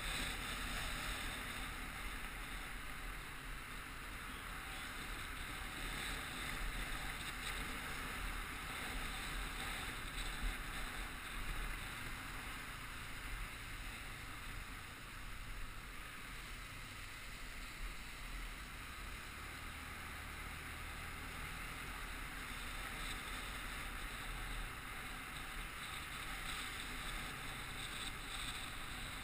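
Steady rush of wind and road noise on an action camera mounted on a moving vehicle, with tyre hiss from the wet tarmac.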